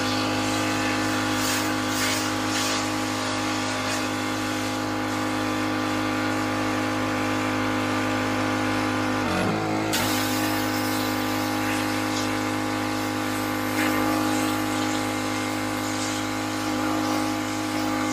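Pressure washer's engine running at a steady pitch under the hiss of the water spray, with a brief dip in pitch just before halfway through.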